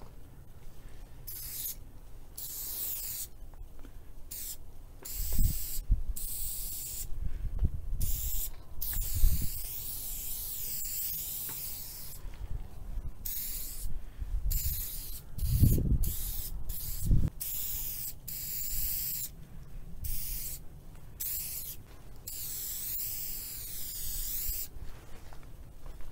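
Aerosol spray paint cans hissing in repeated bursts of varying length with short gaps between, the tone of some bursts wavering, mixed with a few dull low thumps.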